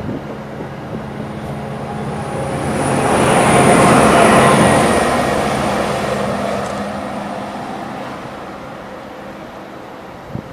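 A train passing by: its running noise swells to a peak about four seconds in, then slowly fades as it moves away.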